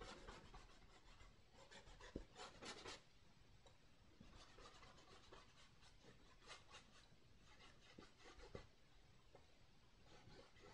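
Faint scratchy strokes of a filbert brush dragging acrylic paint across canvas, coming in short clusters.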